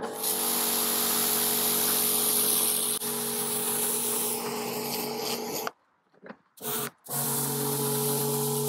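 Karcher K4 Compact electric pressure washer running, its motor and pump humming steadily under the hiss of the dirt blaster lance's rotating jet hitting paving slabs. About six seconds in the spray and hum stop for about a second, with a brief spurt in the gap, then start again.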